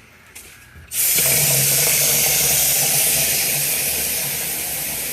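A hot water tap turned on about a second in, water rushing out steadily to draw on a tankless water heater.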